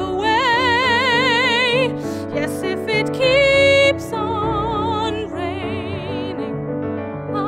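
A woman singing long held notes with wide vibrato over piano accompaniment, one note held straight about three seconds in.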